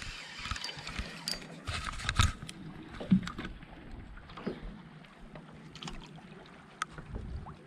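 Irregular clicks and knocks of a spinning reel and rod being worked on a boat deck while a small bass is reeled up to the surface.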